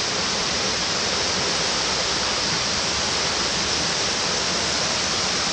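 Waterfall rushing in a steady, even hiss.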